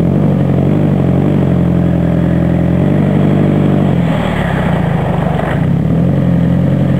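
Toyota Prius hybrid synergy drive's 1.5-litre four-cylinder petrol engine running steadily at a raised speed, having just been started by pressing the accelerator. About four seconds in it dips briefly and picks up again.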